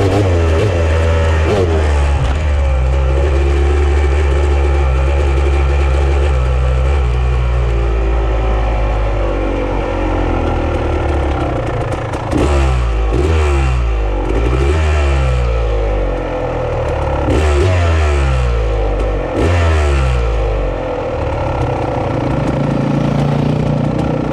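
Off-road vehicle engine running while being ridden. It holds a steady pace at first, then from about halfway it revs up and down over and over, roughly once a second, as the throttle is worked, before settling again near the end.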